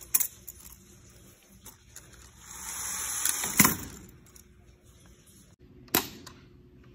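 VEX competition robot's hanging mechanism working on the hang bar: a few sharp clicks, then a rising hiss that ends in a loud metal clack about three and a half seconds in, and another sharp clack near the end.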